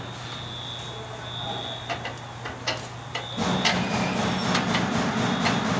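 Steady mechanical hum with a few sharp clicks and knocks, turning into a louder, busier machine noise about three and a half seconds in.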